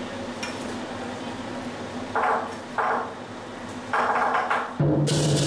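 Over a low steady hum, a few short metallic clangs sound: two quick ones a little after two seconds and a longer one at about four seconds. Just before the end, loud drumming and music start up.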